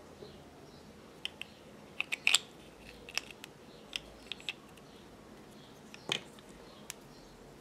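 Small clicks and taps of metal sewing-machine bobbins and short PVC plastic tube pieces being handled, with a quick run of clicks about two seconds in and a louder knock about six seconds in as a tube is set down on the table.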